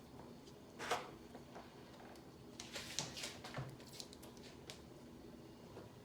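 Faint clicks and light knocks of hands handling the iMac's display panel as it is lifted from the case: one sharper click about a second in, then a scatter of small taps a few seconds later.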